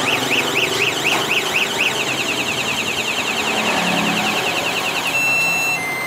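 Aftermarket motorcycle anti-theft alarm siren on a Honda Dream 125, set off by pressing the remote's lock button, cycling through its tones: a rising-and-falling wail about twice a second, a much faster warble about two seconds in, then steady stepped beeps near the end.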